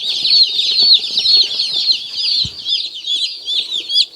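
A box and brooder of about fifty baby broiler chicks peeping loudly and without a break, many short high chirps overlapping, each rising and falling in pitch.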